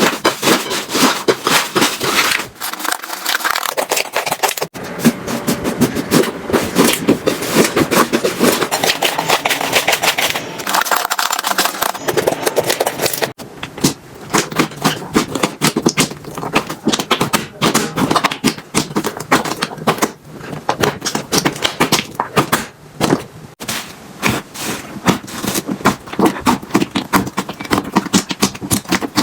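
Hands squishing, poking and stretching slime: a dense run of rapid wet clicks, pops and crackles, shifting in character at several abrupt cuts.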